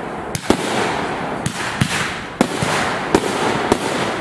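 Aerial fireworks shells bursting: about seven sharp bangs at irregular intervals over a continuous dense crackle.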